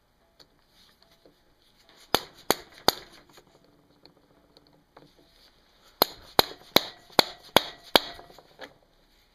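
Hammer strikes: three sharp blows about two seconds in, then a run of six evenly spaced blows a little under half a second apart.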